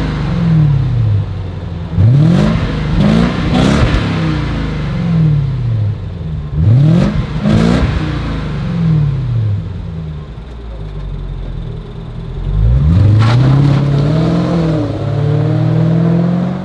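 Jaguar XJ Super V8's supercharged 4.2-litre V8 exhaust, through new stainless-steel mufflers slightly louder than stock, blipped about six times from idle, each rev rising quickly and falling back. About 13 seconds in the car pulls away and the revs climb and hold.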